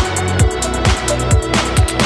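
Electronic dance music with a fast drum beat and a heavy bass line.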